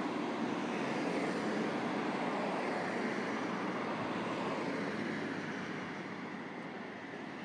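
Steady rushing noise of a passing vehicle, slowly fading over the last few seconds.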